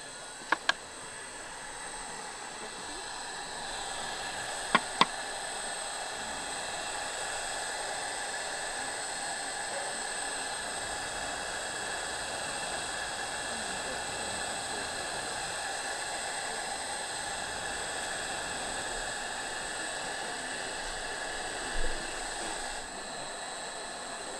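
A small electric motor running steadily, an airy hiss with a thin high whine, building up over the first few seconds and dropping away near the end. Two sharp double clicks come, one about half a second in and one about five seconds in.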